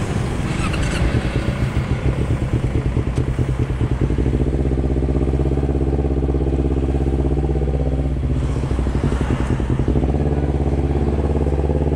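Kawasaki Ninja 250R carburetted parallel-twin engine with a Termignoni aftermarket exhaust, running with an uneven, pulsing beat for about four seconds, then settling into a steady even note.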